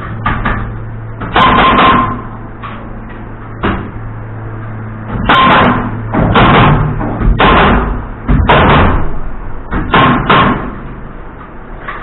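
About a dozen heavy, irregular knocks on wooden framing lumber, some in quick pairs, as a green-treated 2x8 is fastened into a garage door frame, over a steady low hum.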